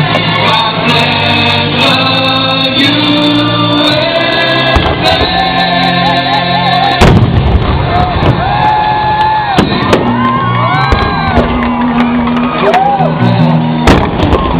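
Music with singing, over scattered sharp firework bangs and crackles, one louder bang about halfway through.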